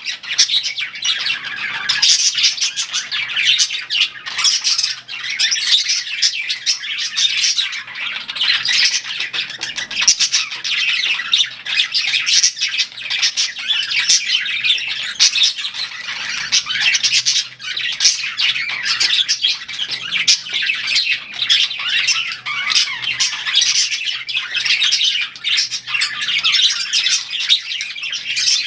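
A flock of budgerigars chirping, chattering and squawking continuously, many quick high calls overlapping without a break.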